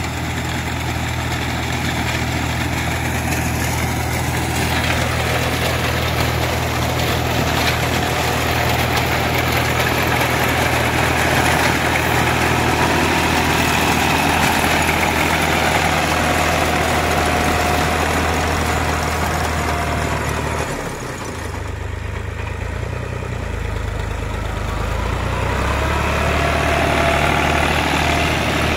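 A New Holland Ghazi tractor's diesel engine runs steadily while driving a front-mounted reaper binder that is cutting wheat. About twenty seconds in, the engine note drops and the sound dips for a few seconds, then picks back up.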